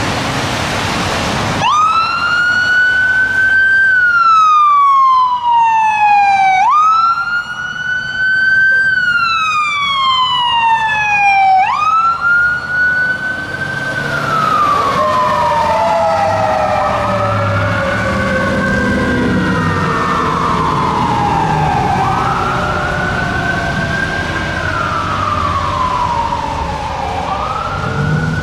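Traffic noise from a passing car, then a fire engine's siren starts on its wail about two seconds in: a quick rise and a slow fall, repeating about every five seconds. Later the wail sounds doubled, with overlapping cycles out of step, over the low rumble of the truck's engine as it pulls away.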